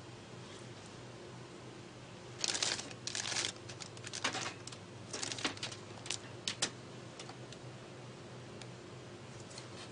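A run of short rustling, crinkling noises, something being handled, for about four seconds starting a couple of seconds in, over a faint steady low hum.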